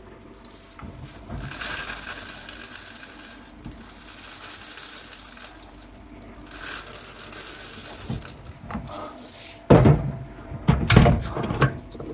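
Coarse dishwasher salt pouring into the dishwasher's salt reservoir in three hissing pours of about two seconds each, followed by a few loud knocks and rattles near the end.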